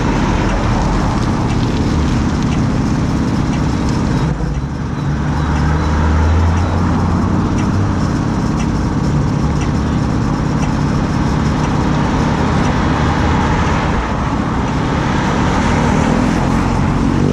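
Steady wind rush and road noise from riding a bicycle, with motor traffic. A low vehicle hum swells about five seconds in.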